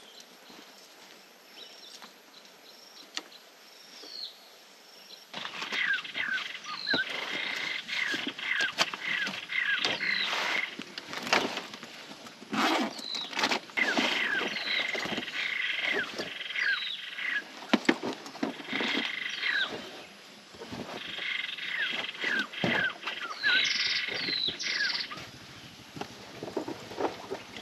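Wild animal calls in repeated runs of short, falling chirps, fainter at first and then loud and dense with brief pauses between runs. Rustling and light knocks from a foam sleeping mat and backpack being handled are mixed in.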